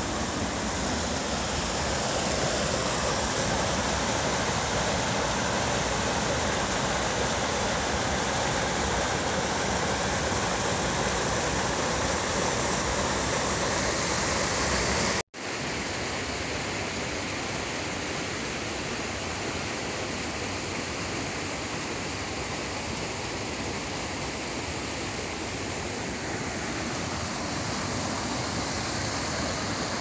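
River water rushing over small rocky cascades, a steady, unbroken rush. It cuts out completely for an instant about halfway through, then resumes.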